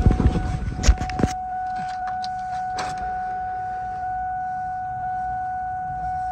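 A 2002 Ford Mustang's dashboard warning tone sounding one steady pitch, with the key switched on and the engine not running. Knocks and a rattle of keys come in the first second or so, with another knock a little later.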